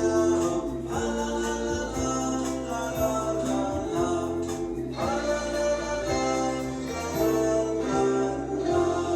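Background music: a Christmas carol sung by voices with instrumental accompaniment, slow sustained chords over a steady bass.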